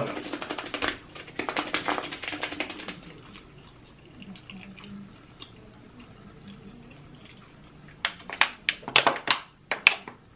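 Close-miked wet chewing and lip smacking of creamy shrimp Alfredo pasta: a run of quick wet clicks for the first few seconds, softer chewing in the middle, and sharp smacks again near the end.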